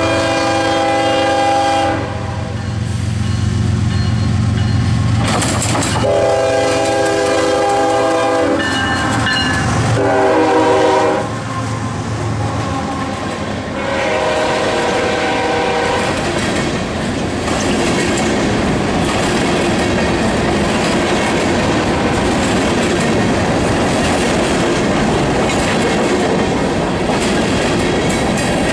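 CSX diesel freight locomotive sounding its air horn in long blasts, with a short one between, as it approaches, its engine rumbling underneath; the horn chord is lower in the last blast, after the locomotive has passed. From about halfway on, a train of coal hopper cars rolls by with a steady clickety-clack of wheels over rail joints and switchwork.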